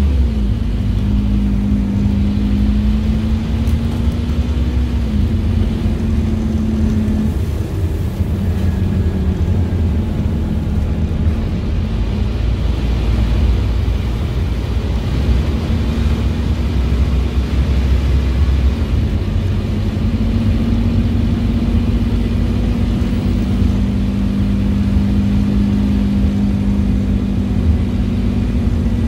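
Scania N230UD OmniCity bus's Euro 4 Scania DC9 five-cylinder diesel with ZF Ecomat 5HP500 automatic gearbox, heard from inside the passenger saloon while the bus is under way. A steady low rumble with a humming tone that changes pitch a few times as the bus drives on.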